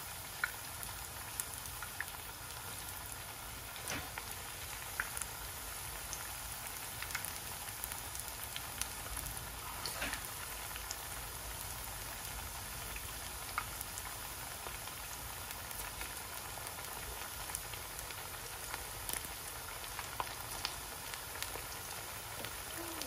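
Plantain pieces frying in shallow oil in a frying pan: a steady sizzle with scattered crackling pops.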